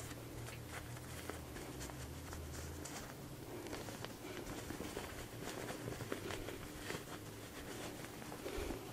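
Fabric rustling and brushing in irregular bursts as a sewn, lined dog dress is turned right side out by hand. A faint low hum runs under it for the first few seconds.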